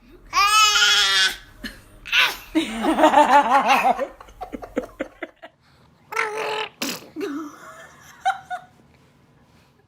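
Laughter: a high, wavering laugh in the first second, then a run of quick, rhythmic laughs, followed by scattered small clicks and short sounds.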